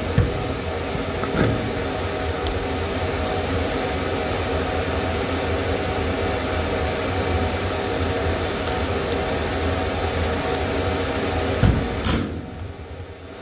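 Steady fan and machinery hum of a server room, with a couple of light knocks about a second and a half in and near the end.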